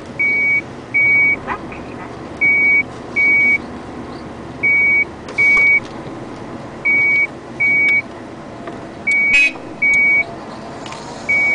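Back-up alarm of heavy machinery beeping in pairs, a pair about every two seconds, over a steady low rumble of machinery.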